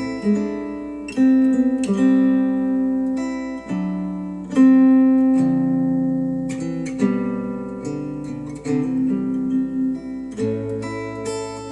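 Acoustic guitar music, plucked and strummed chords ringing out and changing every second or so, played back through Wharfedale Denton 80th bookshelf speakers driven by a Denon AVR-X1600H receiver.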